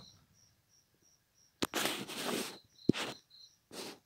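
Crickets chirping faintly, short high chirps about twice a second. About one and a half seconds in, a sharp click is followed by a rush of noise, with another click and a short rush near three seconds and a brief one near the end.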